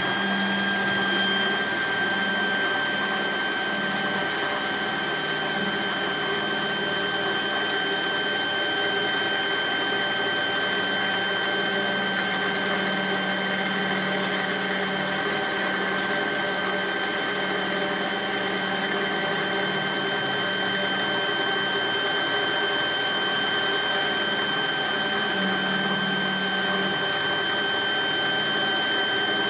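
Mazak CNC lathe's live-tool spindle driving an end mill through a slot in the face of a metal bar. It gives a steady high whine with overtones, over a lower hum that comes and goes as the cutter works.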